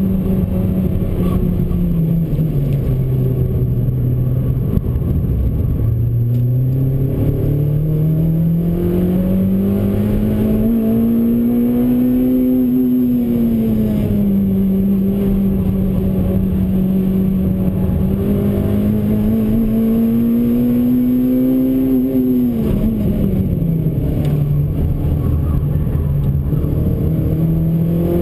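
Honda Civic Type R EP3's K20 four-cylinder engine heard from inside the cabin under hard track driving. The engine note drops about two seconds in as the car slows, climbs steadily for several seconds, dips briefly at a gear change, climbs again, falls once more for the next slowing, and rises again near the end.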